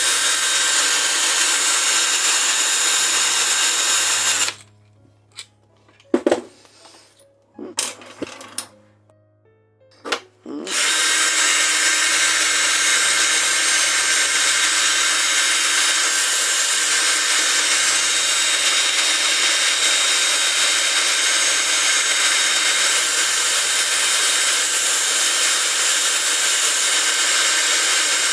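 Cordless drill spinning a wire brush to clean a FELCO 7 secateur part, running steadily. It stops about four and a half seconds in; a few knocks follow, and it starts up again some six seconds later.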